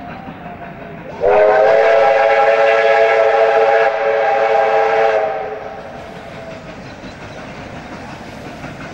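Steam whistle of an R class Hudson 4-6-4 locomotive sounding one long blast of about four seconds, several notes at once. It starts about a second in and dies away after it is shut off.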